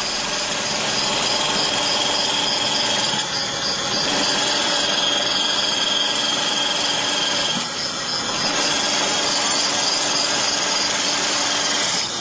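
Sheet feeder and printing machine running: a loud, steady mechanical noise with several steady high-pitched whines, dipping briefly a few times.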